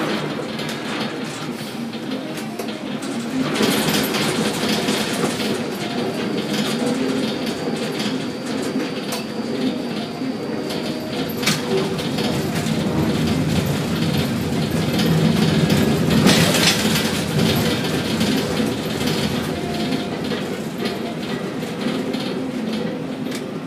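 Ship-to-shore container gantry crane running: steady machinery hum with rattling and clanking, swelling to a louder clatter about two-thirds of the way through.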